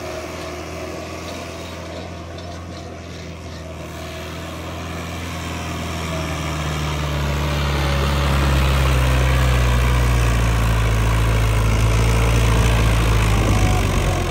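Diesel engine of a New Holland Dabang NH85 tractor running steadily under load as it pulls a double disc harrow in first high gear. It gets louder from about four seconds in as the tractor comes closer, then holds loud.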